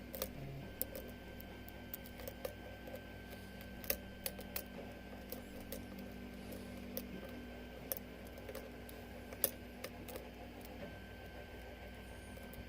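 Faint, irregular small clicks and scrapes of a lock pick working the pins inside a 6-pin Falcon padlock under tension, over a steady low hum.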